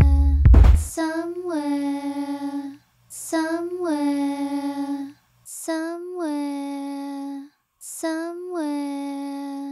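A high singing voice holding the same short note four times, each starting with a small upward bend, with brief gaps between; a deep bass beat cuts off about a second in.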